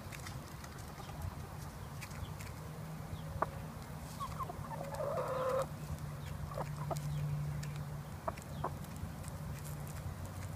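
Hens pecking cracked corn from a bare hand: scattered sharp pecks, with a short burst of clucking about halfway through.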